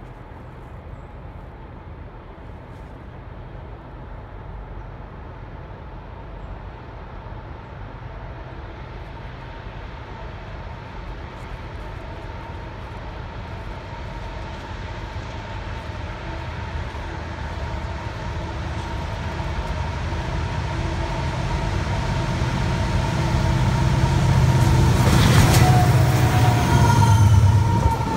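CSX freight train's diesel locomotives approaching along the track, their engine drone growing steadily louder. The sound is loudest near the end as the locomotives pass close by, with a slight drop in pitch as they go past.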